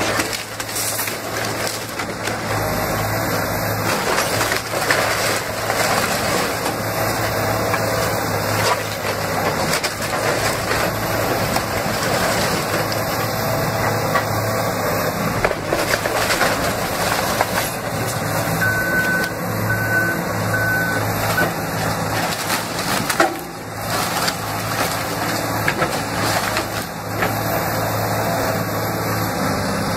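Caterpillar 336E hydraulic excavator's diesel engine running steadily under load while its bucket rips into a wood-frame house: timber cracking and splintering, with debris crashing down again and again and one loud crash about 23 seconds in. A few short beeps sound about two-thirds of the way through.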